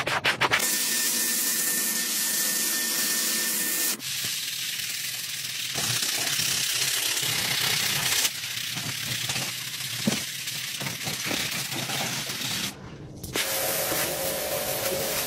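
A rug being wet-cleaned: water spray hissing and scrubbing on the soaked rug, a steady hiss that changes abruptly several times.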